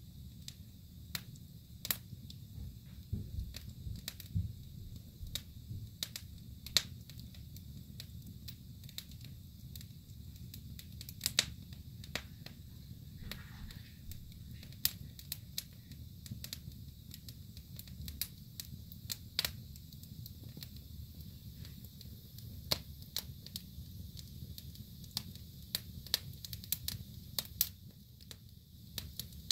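Wood fire in a fireplace crackling and popping: irregular sharp pops, coming thicker near the end, over a low steady rumble.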